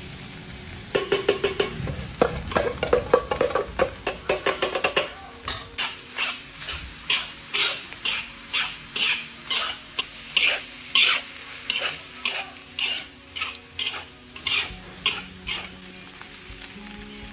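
Spatula stirring and scraping in a hot pan as garlic and egg stir-fry in sizzling oil. Quick, dense strokes for the first few seconds, then steady strokes about twice a second.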